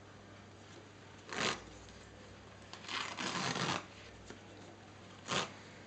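Cohesive bandage (vet wrap) being pulled off its roll and wound around a dog's foreleg: three pulls, a short one about a second and a half in, a longer one of nearly a second around the middle, and another short one near the end.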